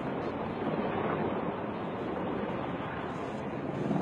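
Helicopter in flight overhead: a steady rushing drone of rotor and engine, with wind buffeting the microphone.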